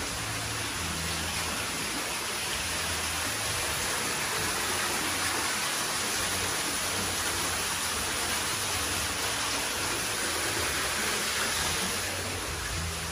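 Water falling down a decorative rock-wall waterfall, a steady rushing hiss that swells in the middle and drops off sharply near the end.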